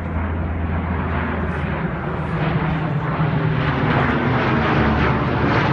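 Engines of a transport plane flying over: a steady low hum under a broad rushing noise, growing gradually louder as it approaches.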